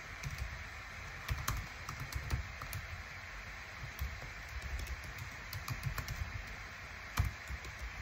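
Typing on a computer keyboard: irregular key clicks in short runs, one louder keystroke near the end, over a steady background hiss.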